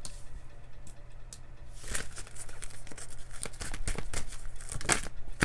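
A deck of oracle cards being shuffled by hand: quick papery flicks and slaps of card against card, growing busier about two seconds in.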